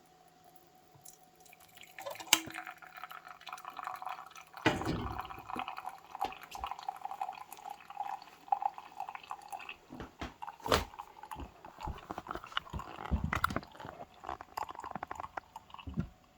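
Liquid dripping and trickling, mixed with irregular clicks and knocks of things being handled, beginning about two seconds in after a short quiet spell.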